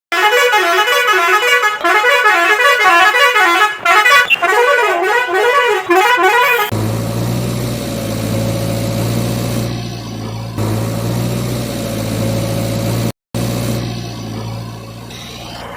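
A siren wailing, its pitch rising and falling about twice a second for the first six or seven seconds, then a steady engine hum.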